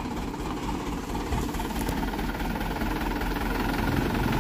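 Light cargo truck's engine idling with a steady low rumble.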